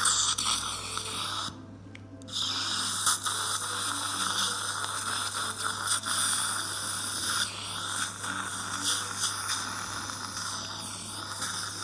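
Dental surgical suction hissing and slurping at the mouth as it draws off blood and saliva, over a steady low hum. It cuts out briefly about two seconds in.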